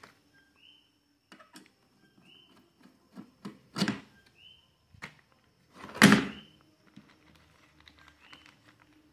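Stainless steel machine screws being fitted through the drilled rivet holes of a machete handle: scattered small metal clicks and knocks, two louder ones about four and six seconds in.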